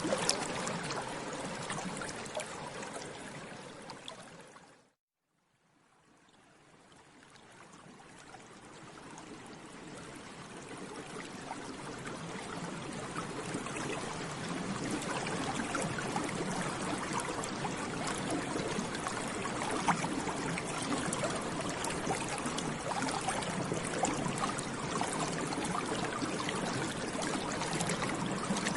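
Bubbles in water, a dense, steady bubbling with many small pops. It fades out to silence about five seconds in, then fades back in gradually over roughly ten seconds.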